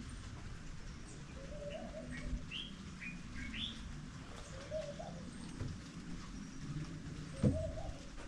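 Wild birds calling: a quick run of short, high chirps in the first half, and a few lower, wavering calls spread through. A brief low thump comes about seven and a half seconds in.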